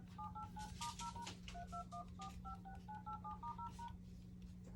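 Phone dial-pad keypad tones on a Samsung A52: a quick run of short two-note touch-tone beeps, about five a second, stopping about four seconds in, over a faint steady hum.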